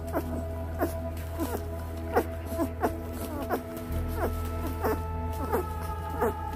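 Eighteen-day-old Lycan Shepherd puppies nursing on their mother, making short squeaky cries about two or three times a second, each falling in pitch, over a steady low hum.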